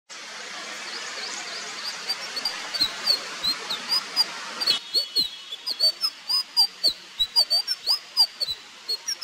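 A flycatcher singing a quick run of short, high, twisting notes, with lower sliding notes beneath. A steady hiss under the first half cuts off abruptly about halfway through.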